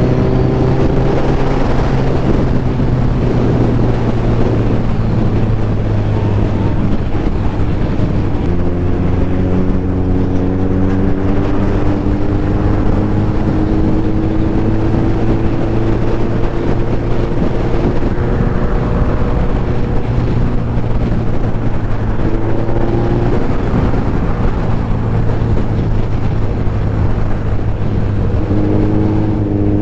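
Suzuki Hayabusa's inline-four engine running under way, its note climbing slowly and stepping a few times, with wind rushing over the microphone.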